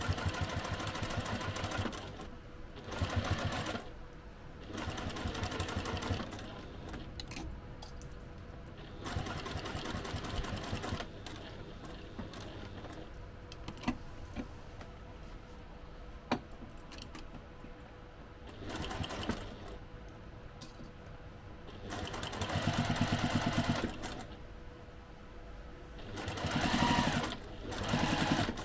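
Domestic sewing machine stitching in short runs of one to two seconds, about seven times, starting and stopping with pauses between and a few light clicks in the gaps: basting the layers of fabric together around the edge.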